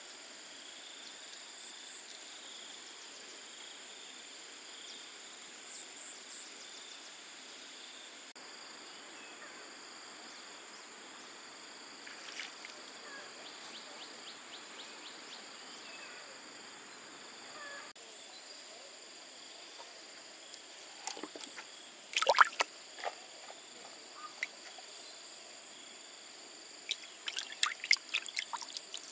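Water sloshing and splashing over a steady background of insects droning at several high pitches. Sharp splashes come in a cluster about two-thirds of the way through and again near the end, and these are the loudest sounds.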